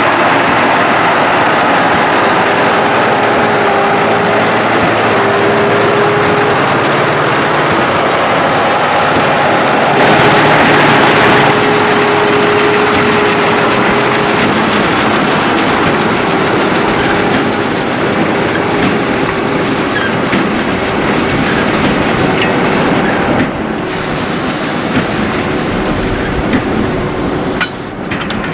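Fendt Favorit 916 tractor working under load with a Krone BigPack 1270 XC large square baler pressing straw: a steady engine tone under the dense, continuous clatter and rattle of the baler. It gets a little quieter near the end.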